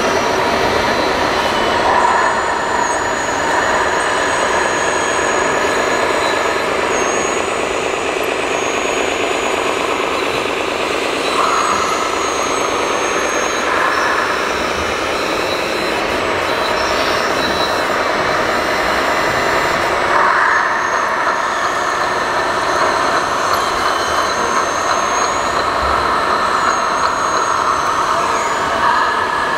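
Lesu LR636 1/14 RC hydraulic track loader working, with a steady mechanical whine from its hydraulic pump and drive motors. The whine swells a few times as the bucket is worked.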